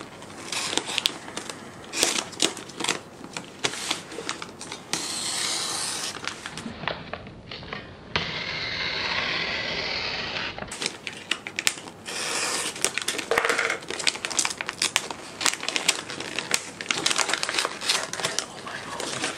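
White wrapping paper crinkling and rustling as a parcel sealed with paper tape is picked at, peeled and pulled open by hand. Dense crackles run throughout, with two longer stretches of sliding or tearing paper in the middle.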